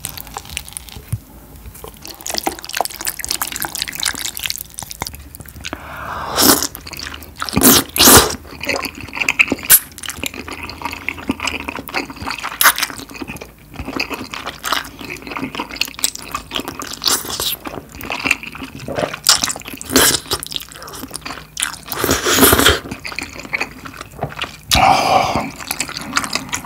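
Close-miked slurping and chewing of wide, flat glass noodles coated in spicy tteokbokki sauce: wet mouth sounds throughout, with several loud slurps.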